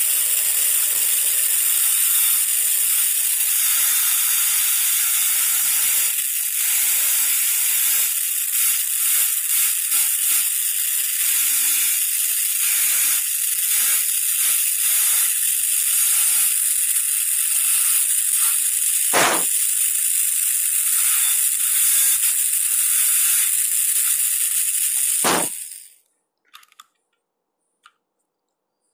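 High-speed dental handpiece running with a burr, grinding through the proximal contact of a typodont premolar: a steady high-pitched whine and hiss with two sharp clicks late on, cutting off suddenly about 26 seconds in as the contact is broken through.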